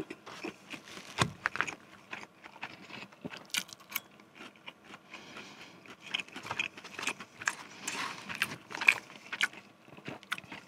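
Metal fork clinking, poking and scraping in a paper cup of instant noodles and popcorn chicken: scattered small clicks and taps, with close-miked chewing between them.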